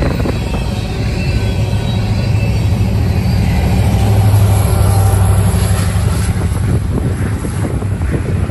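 A train passing close by: a steady low engine drone that swells about halfway through, with wind rushing on the microphone.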